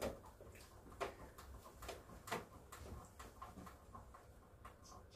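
A few faint, sharp wooden clicks and knocks, about one a second, mostly in the first half, as a small hand tool is worked into the panel of a small wooden box to fix it in place.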